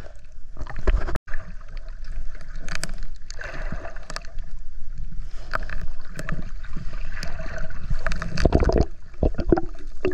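Underwater sound at a diver's camera: a muffled, continuous rush of moving water with many short clicks and knocks as the diver swims and digs at the bottom. The sound cuts out for an instant about a second in.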